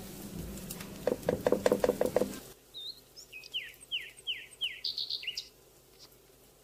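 Grated bottle gourd sizzling in ghee in a wok while a metal spoon knocks and scrapes against the pan in a quick run of strokes. The background then drops sharply and a bird chirps: a series of short falling chirps with a few higher notes.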